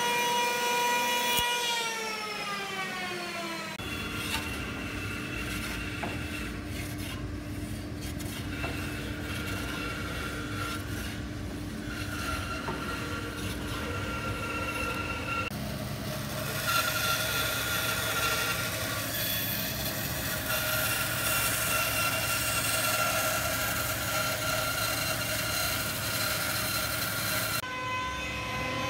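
Electric hand planer shaving a rounded pine spar. Its motor tone falls away over the first few seconds, then a steady planing run follows that shifts about halfway and again near the end.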